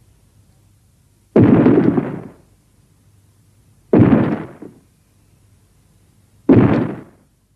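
Three heavy booming impacts, evenly spaced about two and a half seconds apart, each starting suddenly and dying away within about a second: explosion-like monster sound effects.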